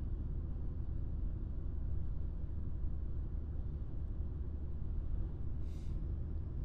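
Steady low background rumble and faint hiss of the recording's room tone, with no speech; a brief faint hiss about six seconds in.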